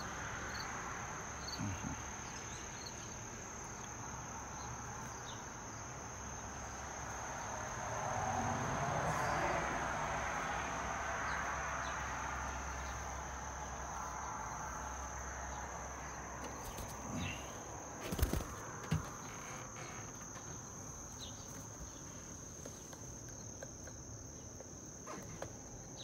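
Insects calling in a steady, unbroken high-pitched drone, with two short knocks about two-thirds of the way through.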